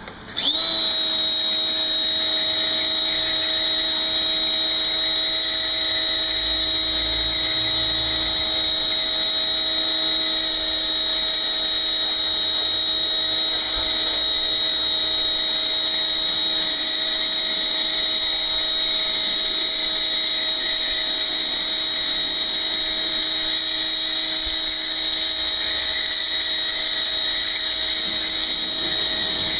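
Pressure washer starting about half a second in and then running steadily, pushing snow foam out through a foam lance: a steady high whine over the hiss of the spray.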